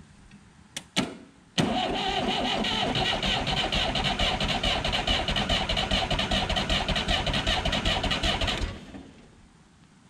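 Two sharp snaps about a second in as the starter is jumped with a pry bar, then the Massey Ferguson backhoe's Perkins diesel cranks steadily for about seven seconds and stops without starting. The worn-out starter is drawing heavy current and arcing, and it will not turn the engine over fast.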